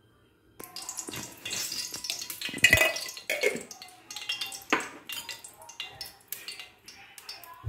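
Ghee being scraped from a bowl into a deep pan of hot oil: irregular scraping and clinking of a utensil against the bowl and pan, with crackling as the ghee meets the hot oil. It starts about half a second in, with one sharper clatter near the middle.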